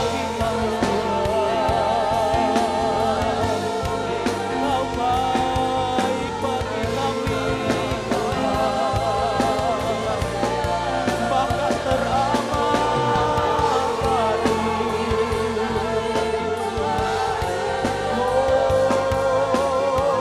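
Live church worship music: a band playing under singers' voices that hold long, wavering notes.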